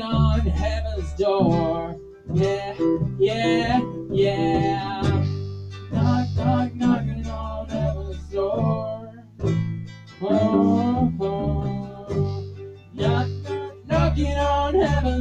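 A woman sings a song over her strummed acoustic guitar, with an electric bass guitar playing low notes under them.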